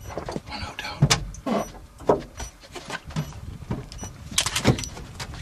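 Irregular creaks and knocks from a safari vehicle's roof as a cheetah walks across it and the roof shifts under its weight. The sharpest knocks come about a second in, near two seconds, and a cluster comes past four seconds.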